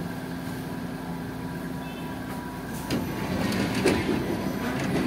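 Tokyu 8500 series electric train motor car with Hitachi traction motors, heard running from inside the car: a steady running noise with faint even tones. About three seconds in it turns louder and rougher, with a short run of wheel-on-rail knocks.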